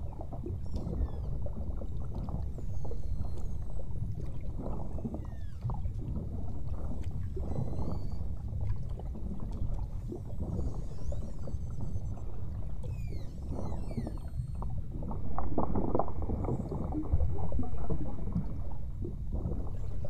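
Steady low rumble of water and boat noise, with faint beluga whale whistles and chirps running through it as short rising and falling glides. The rumble swells louder twice near the end.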